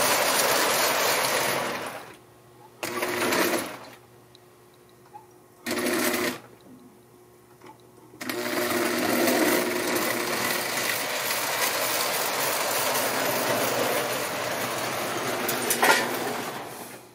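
Marx tinplate steam locomotive's electric motor whirring as it runs on three-rail track. The sound stops about 2 s in, comes back in two short bursts, then runs steadily again from about 8 s in.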